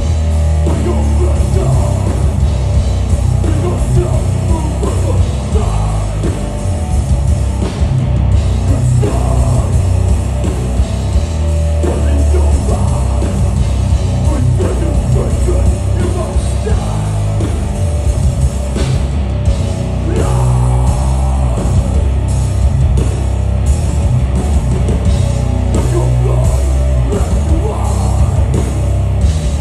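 Death metal band playing live through a festival PA, heard from the crowd: heavily distorted guitars and bass with a drum kit, and vocals.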